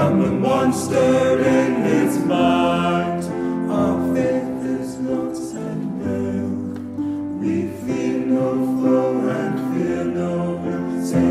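Background music with a choir singing over accompaniment.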